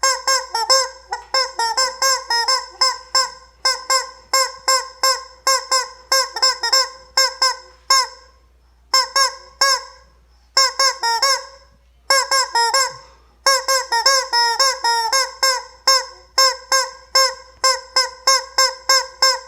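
Rubber chicken squeeze toy squawking over and over as it is squeezed, about two honking squawks a second, with short breaks about eight, ten and twelve seconds in.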